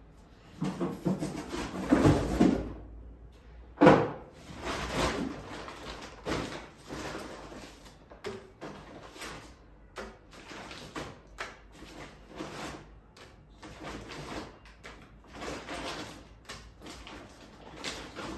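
Shopping being unpacked and handled: irregular rustling of bags and packaging with knocks as items are set down, the sharpest knock about four seconds in.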